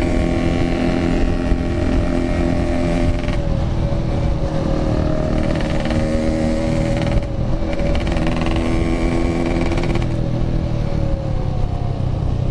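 Yamaha RX-King 135cc two-stroke single running under way at a steady pace, with its note breaking briefly a few times as the throttle or gear changes. The rider calls its sound hoarse.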